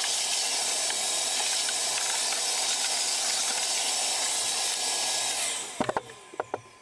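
A workshop vacuum running with a steady rushing hiss while the planed MDF is cleaned of dust. It dies away about five and a half seconds in, followed by a few light clicks and knocks.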